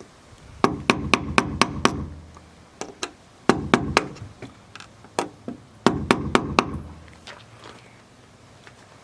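Quick, sharp knocks in runs of four to six, about five a second, with a few single knocks between the runs.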